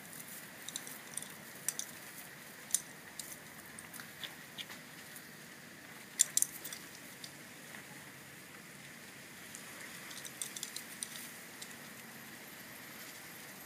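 Boxer puppies scuffling in grass and weeds: scattered rustles and sharp little clicks and crackles, with the loudest cluster about six seconds in.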